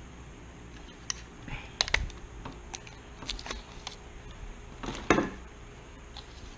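Scattered light clicks and taps of small hard objects being handled on a work surface, with a louder clattering knock about five seconds in.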